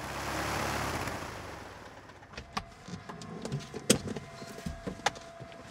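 A rush of noise swells and fades over the first two seconds. Then come scattered clicks and knocks of someone moving about on a light aircraft's wing and against its cabin.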